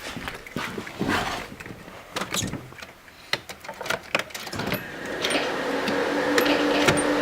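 Scattered clicks and knocks, then about five seconds in a steady electric motor whine starts up in the car and keeps going.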